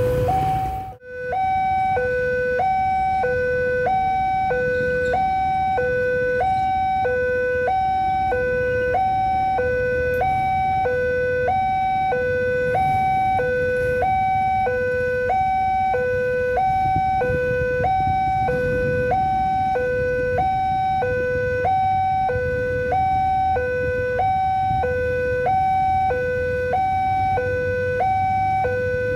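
Railway level-crossing warning alarm: an electronic two-tone signal alternating steadily between a high and a low tone, a little under one high-low pair a second, sounding while the barrier is down because a train is approaching. It drops out briefly about a second in, and a low rumble runs underneath.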